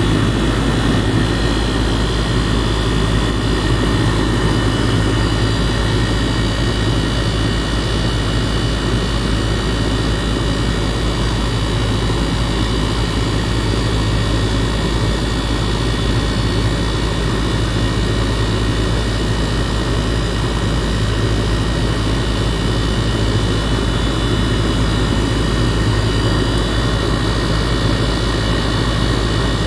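2018 2.5-ton Goodman gas pack running steadily in cooling mode: the compressor hums under the rush of the condenser fan, with several steady high tones over it.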